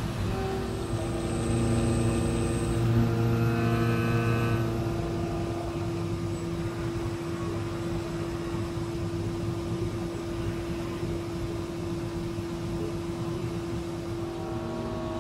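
CNC milling machine cutting a metal billet under flooding coolant: a steady machine whine over a low rumble, with extra higher tones that drop away about five seconds in.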